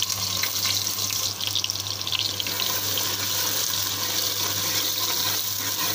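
Sliced onions sizzling in hot mustard oil in a metal pot: a dense frying hiss with sharp crackles, busiest in the first two seconds.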